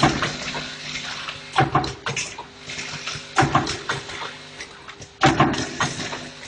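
Handle spot-welding machine for rectangular can ends cycling about every second and a half to two seconds. Each stroke is a sharp clack followed by a short burst of noise, over a steady machine hum.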